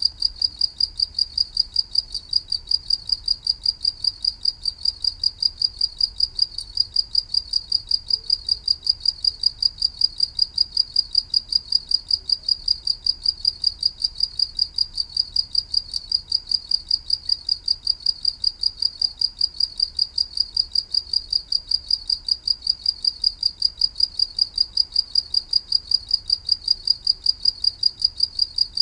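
Cricket chirping, a high-pitched chirp repeated in a steady, even rhythm without a break.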